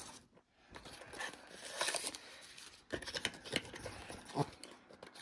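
Scraping and rustling of a small black cardboard box being handled and pried open by hand, with a few light clicks and taps.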